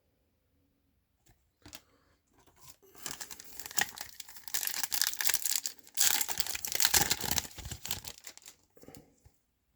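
Foil wrapper of a trading card pack being torn open and crinkled. It starts about three seconds in, with a brief break about halfway through, and dies away shortly before the end.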